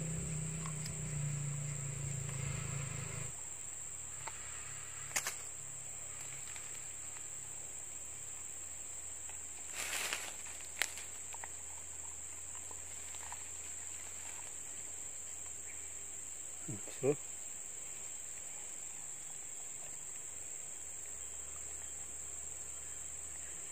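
Steady high-pitched drone of insects, with a few faint clicks and a brief voice sound about two-thirds of the way through.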